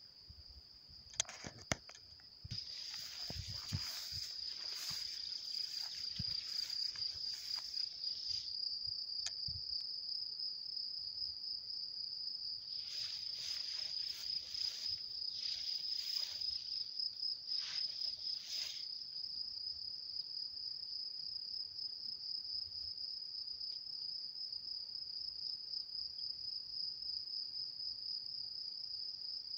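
Meadow insects chirring in one steady, high-pitched, unbroken trill, with two stretches of rustling and a couple of sharp clicks near the start.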